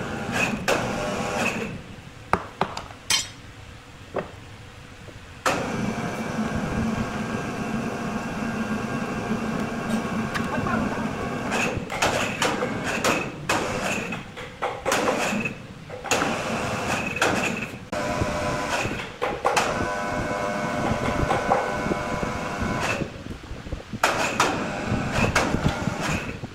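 Circular saw blade cutting wood blocks: a steady whine under load, in several stretches a few seconds long that start and stop abruptly.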